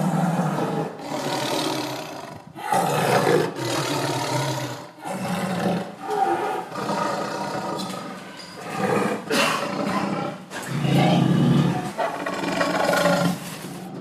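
Tiger growling and snarling: a long string of rough roars, one after another with short breaks.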